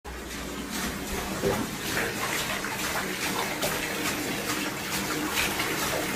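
Bathtub tap running, water pouring steadily into a filling bath.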